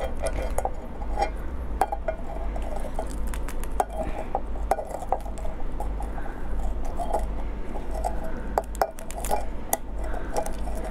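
Shell and cartilage of a marinated swimming crab crackling and snapping as it is pulled apart by hand: an irregular run of small sharp clicks and crunches over a steady low hum.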